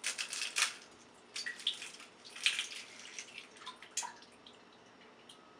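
Kitchen handling noises: a run of light clicks, taps and wet, splashy sounds over the first three seconds, with one more tap about four seconds in.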